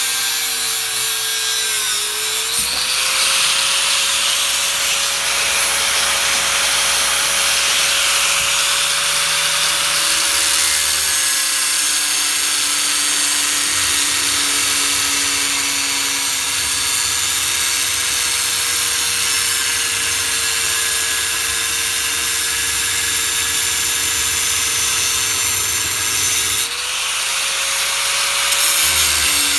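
Electric power tool running continuously on scrap steel for a deck patch, with a steady motor whine over a harsh hiss. The motor pitch dips briefly and recovers under load about two seconds in and again near the end.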